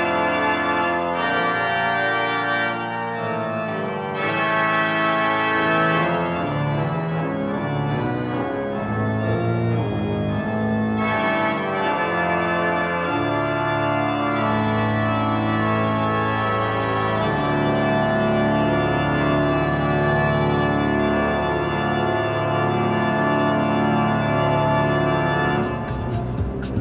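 Organ music playing held chords that change every second or so, ending about a second before the end.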